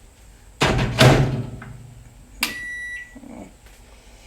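A loud clunk and clatter, then a single short electronic beep from a kitchen appliance's control panel, most likely as the heat is switched on under the kettle.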